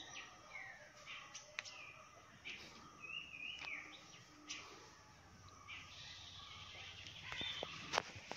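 Birds chirping on and off in the background, with faint clinks of a metal wire-mesh skimmer against an aluminium pot as drained rice is lifted out; the clinks come closer together and sharper near the end.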